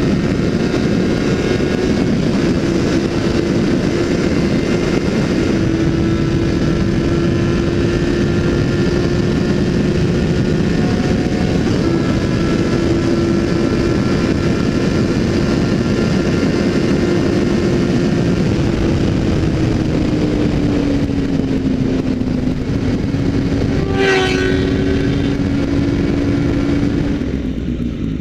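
Suzuki GSX650F inline-four engine running steadily at high revs at highway speed, under heavy wind rush on the microphone. The engine note drops a little after about 19 s, a brief sweeping sound cuts through about 24 s in, and near the end the revs fall as the bike slows down.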